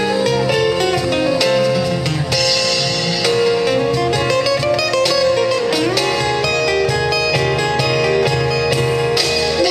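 Live band playing an instrumental passage of a pop ballad, a guitar to the fore over keyboard, bass and percussion.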